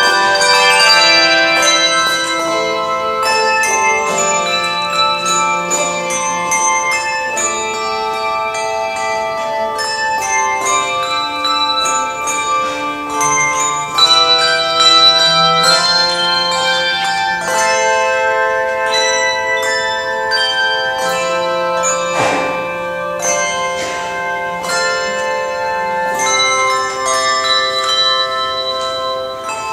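Handbell choir ringing a tune in chords: many tuned handbells struck together, their tones sustaining and overlapping.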